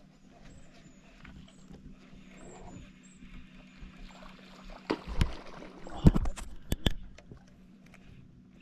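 A few sharp knocks and clicks in a small fishing boat, loudest about six seconds in, over a steady low hum.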